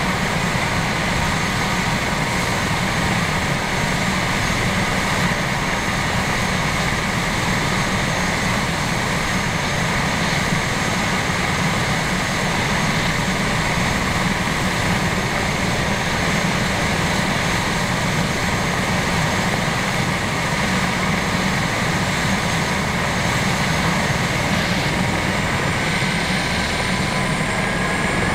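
Airbus H145 twin-turbine rescue helicopter running on the ground: a steady turbine whine over rotor and engine noise. The whine rises in pitch near the end.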